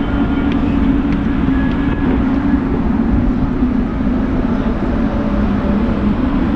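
Steady low mechanical drone of a cruise ship's machinery, a constant hum with rumble underneath, holding level throughout.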